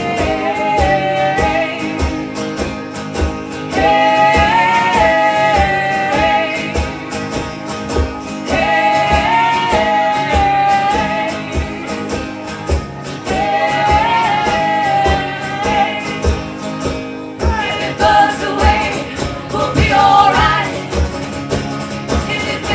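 Live band music: long, wordless held vocal notes in phrases of a few seconds each, over guitar and a steady low beat.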